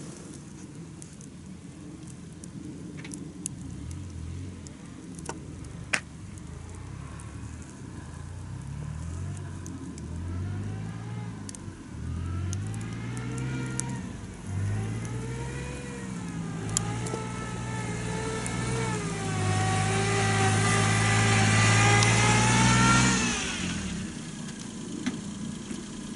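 A car engine accelerating through several gear changes, its pitch climbing and dropping back each time and growing louder, then holding steady before stopping abruptly about three seconds before the end. A few sharp pops from a wood fire sound earlier on.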